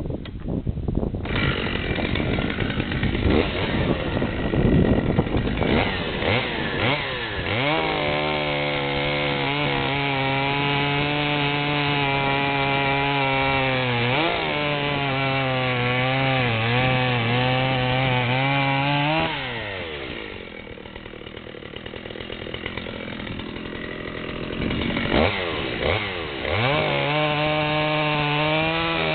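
Dolmar PS-6400 two-stroke chainsaw cutting through a fresh oak log on a round-filed chisel chain worn past its witness marks. The engine pitch sags and wavers under load. About twenty seconds in the engine drops off and runs quieter for a few seconds, then revs back up as the saw goes into the next cut.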